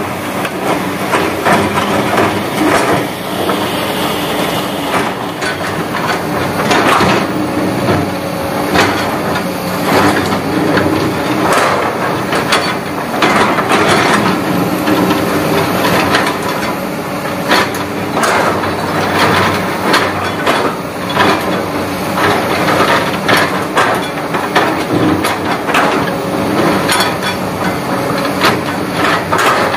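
Hyundai 220-9SH hydraulic excavator's diesel engine running under load while its steel bucket scrapes and digs into a rock face, with many irregular crunching knocks and loose rock and sand clattering down the slope.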